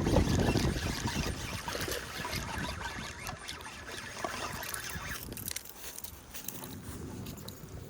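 Wind rumbling on the microphone out on the water, strongest in the first second and easing off about five seconds in.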